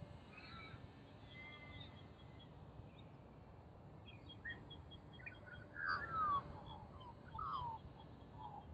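Birds calling: two falling calls about six and seven and a half seconds in are the loudest sounds, with a regular run of short, high chirps and light wind noise beneath.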